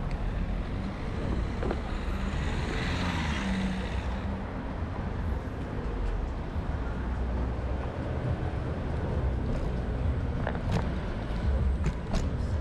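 Road traffic: a steady low rumble of vehicles, with one passing more loudly about two to four seconds in, and a few sharp clicks near the end.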